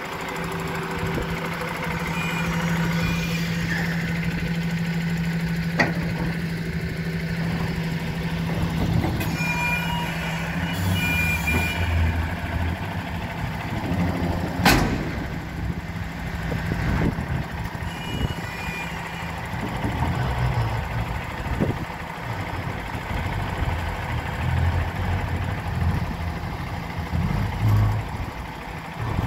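MAN swap-body truck's diesel engine running at low revs while the truck manoeuvres slowly under a swap body, with a steady low hum at first and several low swells in engine note later on. A single sharp knock about halfway through.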